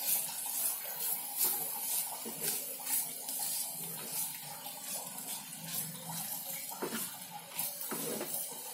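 Chopped beetroot sizzling softly in oil in a non-stick pan on a low flame. A wooden spatula stirs through it, making frequent short scrapes and clicks against the pan.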